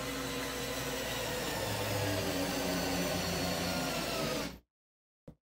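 Ryobi 4V electric screwdriver's motor running steadily while driving a wood screw, its pitch sagging slightly near the end as the screw seats, then cutting off suddenly about four and a half seconds in. A couple of small clicks follow.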